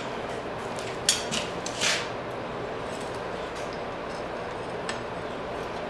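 Steady hiss of workshop background noise, with two short light clicks about one and two seconds in.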